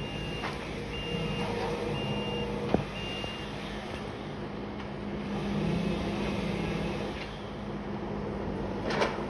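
Compact track loader's engine running steadily, its reversing alarm beeping about once a second for the first three seconds, with a sharp knock about three seconds in.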